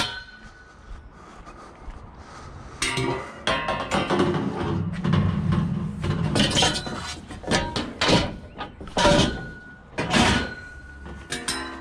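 Pieces of scrap metal clanking, scraping and banging together as they are handled and loaded, starting about three seconds in, with a few hits that ring on briefly.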